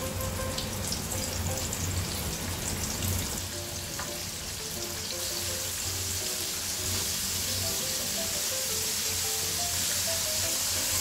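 Flour-coated chicken pieces deep-frying in hot oil, a steady sizzle that grows fuller about halfway through as the pieces are stirred with wooden chopsticks.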